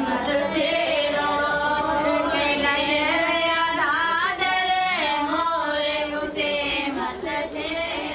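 Women's voices singing together in long, held notes that waver and glide in pitch, with no drum beat.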